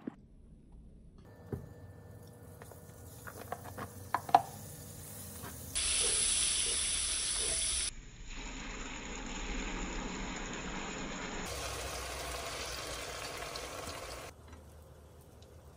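A few light knocks and clicks of kitchenware, one sharp clack among them, then a steady hiss of water running from a kitchen tap for several seconds, loudest in its first stretch.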